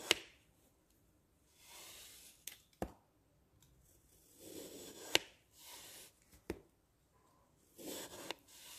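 Knife cutting through a glitter-coated block of dry green floral foam: about four short scraping strokes as the blade passes through, several ending in a sharp click as it meets the surface below.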